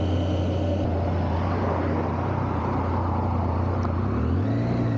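Triumph Tiger 800's three-cylinder engine running at low riding speed, with wind and road noise. The engine note is steady and low, then steps up in pitch about four seconds in.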